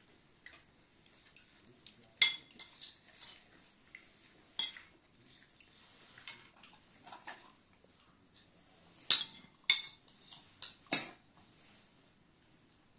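Metal spoons clinking and scraping against plates and serving dishes in scattered sharp clinks, one at a time at first, then several in quick succession about nine to eleven seconds in.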